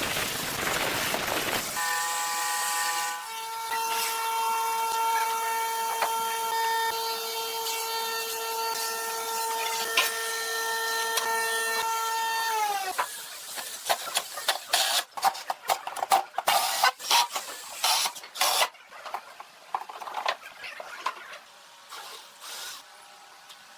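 A steady, high machine whine with strong overtones for about ten seconds, which dips in pitch and cuts off, followed by a run of irregular sharp clicks and knocks, as of wood or tools being handled.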